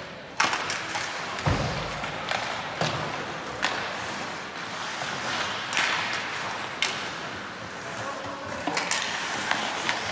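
Ice hockey play in a rink: sharp, irregular clacks and thuds of sticks, puck and boards, about one a second, over a steady scraping noise.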